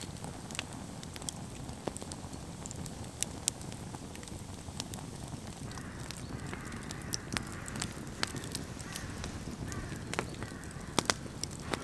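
Wood campfire crackling, with sharp pops scattered throughout.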